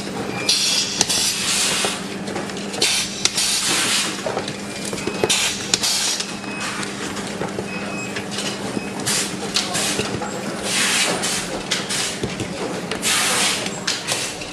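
Power bank factory production-line noise: a steady machine hum with short hissing bursts every second or two, like air blowing, and scattered clicks.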